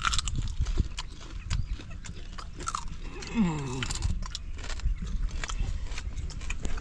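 Cooked prawns being bitten and chewed, with many small crunchy clicks. About halfway through there is a short falling hum from one of the eaters.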